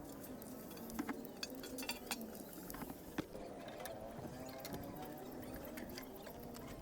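Metal hand tools clinking and knocking against engine parts during engine reassembly, in scattered sharp clicks, with a faint wavering voice or music in the background.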